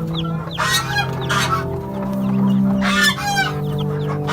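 Chickens calling: a hen gives three loud calls, about half a second in, again a second later and near the three-second mark, while small chicks peep in quick, high, falling cheeps.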